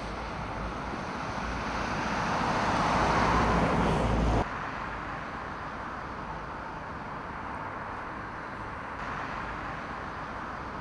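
Outdoor road-traffic noise: a passing vehicle grows louder over the first few seconds and is cut off abruptly at about four and a half seconds, leaving a steady, quieter traffic hum.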